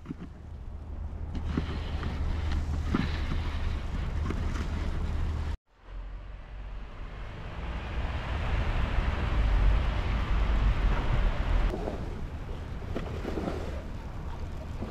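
Wind rumbling on the microphone over a steady outdoor rush of noise, with a brief cut to silence about five and a half seconds in.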